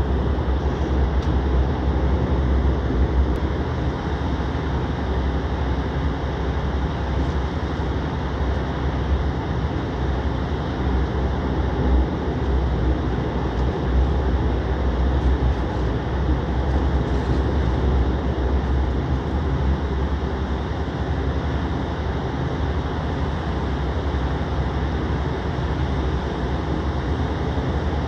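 Steady cabin noise of an airliner taxiing: a low rumble with an even hiss of engines and air over it, unchanging throughout.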